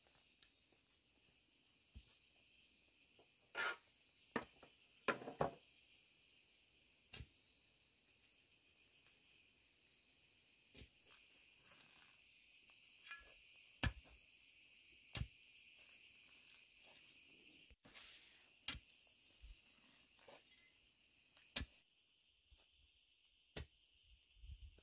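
Faint, steady high-pitched insect chorus, with about a dozen scattered soft knocks from footsteps and a wooden stick touching the dirt.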